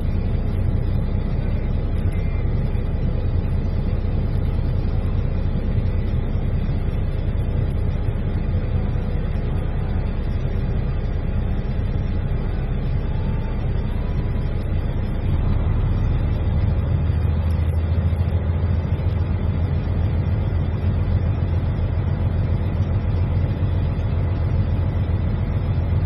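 Semi truck's diesel engine idling, heard from inside the cab, with the cab's heater/air-conditioning fans blowing. The low, steady rumble grows a little louder about fifteen seconds in.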